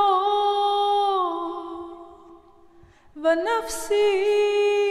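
A woman's voice chanting an Arabic prayer unaccompanied, in a melismatic style. She holds a long note that fades away about two seconds in, and after a short pause starts a new phrase.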